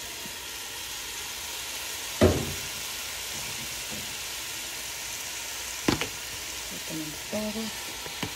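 Parboiled cauliflower, zucchini and green beans sizzling steadily in hot olive oil in a stainless steel pot, with two sharp knocks, about two seconds in and about six seconds in.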